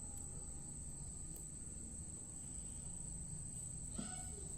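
Quiet background: a steady high-pitched whine over a faint low hum, with one small click about four seconds in.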